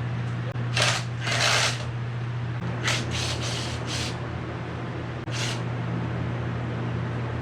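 Several short scraping, rustling noises of plastic body panels and parts being handled and worked loose, over a steady low hum.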